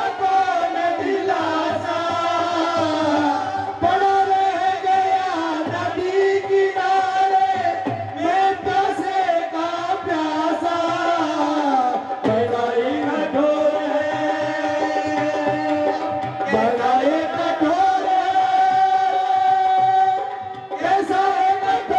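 Indian devotional lament song: a voice singing a slow, long-held, wavering melody over tabla and a steady held tone.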